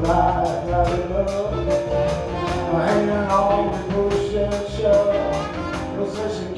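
Live blues band playing a groove: electric guitar, electric bass, congas and saxophone over a drum kit keeping a steady cymbal beat of about four strokes a second.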